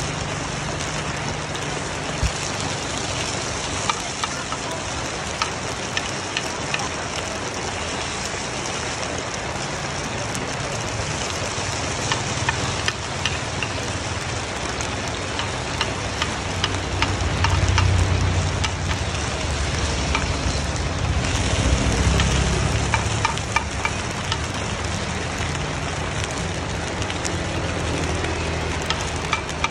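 Coconut cake batter sizzling in a cast-iron mold pan, with a metal spoon clicking and scraping against the pan now and then. A low rumble swells through the middle.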